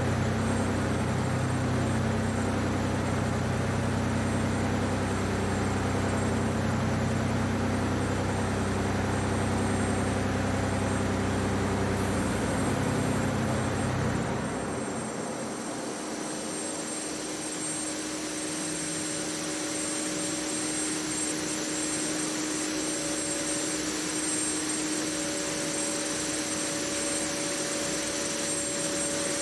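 THOR's multi-supercharged Detroit Diesel 24-71 engine idling with a steady deep rumble, which stops about halfway through as the engine is shut down. After that a steady hiss with a high thin whine remains.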